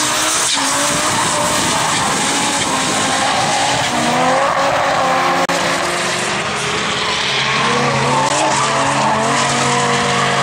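Drift cars sliding through a corner: engines revving up and down over the hiss and squeal of spinning, skidding tyres. The sound breaks off for an instant about five and a half seconds in.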